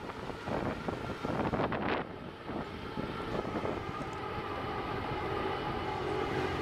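Vehicle engine running, heard from inside the cab on a rough unpaved road. Noisy jolts and rattles for the first couple of seconds, then a steady engine hum.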